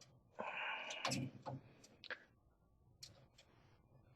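Light, scattered clicks of pliers on the metal locking ring of a CO2 laser's lens nozzle as the ring is turned counterclockwise to loosen it.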